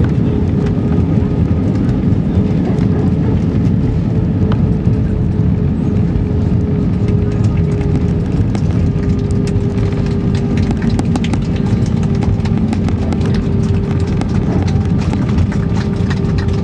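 Cabin noise of an airliner's jet engines and airflow during touchdown and rollout on a wet runway, a steady loud rush with a held engine tone. From about halfway through, rapid small rattles and clicks come through the cabin as the aircraft rolls out with its spoilers up.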